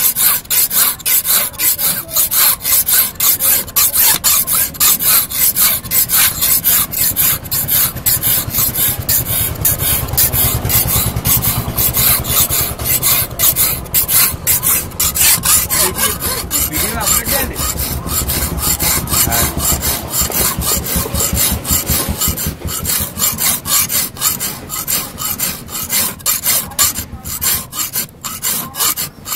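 Flat steel hand file rasping back and forth across a hand-forged steel knife blade held on a wooden block, in quick, steady, repeated strokes: filing to shape the blade.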